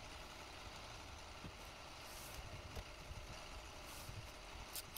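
Masking tape being pressed and smoothed by hand along a car door trim panel: a few brief soft rustles, the loudest near the end, over a faint steady low rumble.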